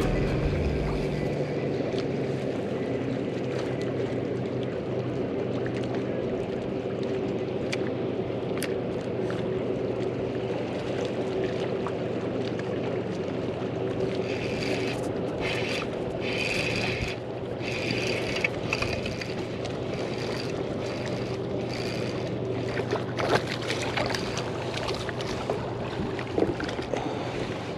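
MotorGuide Xi3 electric trolling motor on a kayak humming steadily, with water slapping around the hull. In the second half there are some splashes and clicks while a hooked fish is brought to the surface.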